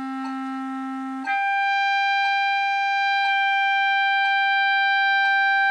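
Clarinet holding a low written D, then jumping up a twelfth to its overtone about a second in as the register key is pressed. The upper note is held steadily and louder to the end, with faint ticks about once a second behind it.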